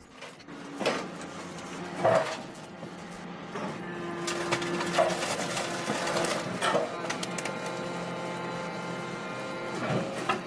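Wood chipper running with a steady hum, broken by several sharp cracks and knocks as material goes through: about a second in, at two seconds, twice in the middle and near the end.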